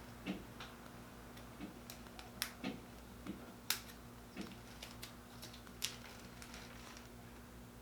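Scattered light clicks and taps, about a dozen at irregular intervals, over a faint steady hum.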